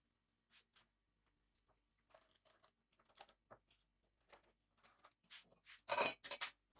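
A series of short, faint clicks and scrapes from hands working with small workshop pieces, with a few louder scraping strokes near the end.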